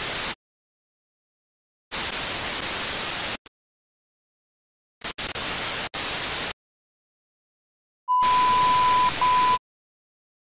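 TV static sound effect: four bursts of white-noise hiss separated by silences, the first very short and the others about a second and a half each. The last burst carries a steady test-tone beep that breaks off for an instant.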